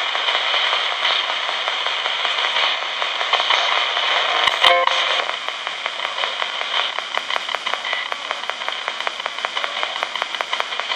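RadioShack pocket AM/FM radio used as a ghost box, sweeping continuously through the AM band: a steady hiss of static chopped by rapid clicks as it steps from station to station, with a brief burst of tone about four and a half seconds in.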